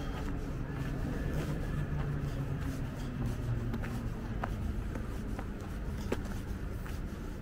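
Outdoor city ambience: a low, steady hum of distant traffic, with footsteps on a paved path and a few faint clicks.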